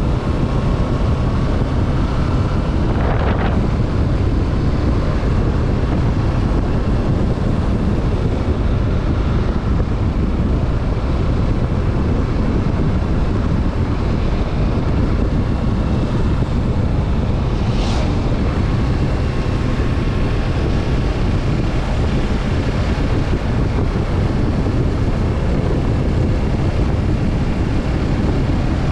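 Wind rushing over the microphone at riding speed on a Kawasaki Z650 motorcycle, with its 649 cc parallel-twin engine running steadily underneath. There is a brief swoosh about three seconds in and another near the middle.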